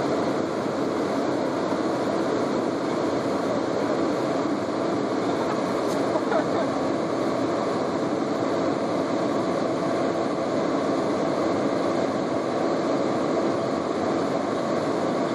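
Steady rushing background noise, even in level throughout, with one faint click about six seconds in.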